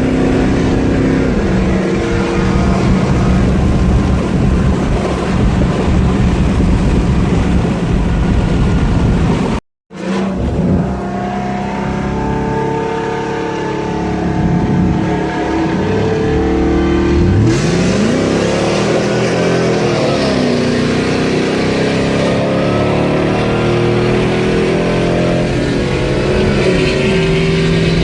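V8 engine accelerating hard through the gears, its pitch climbing and falling back at each shift. The sound drops out completely for a moment about ten seconds in.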